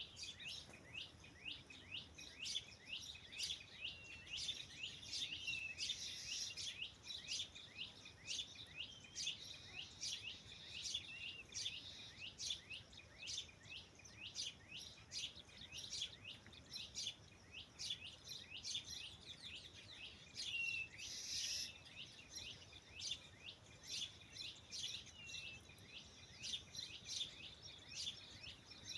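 Small birds chirping in a rapid, unbroken string of short, high chirps, two or three a second, with a few longer clear whistled notes among them.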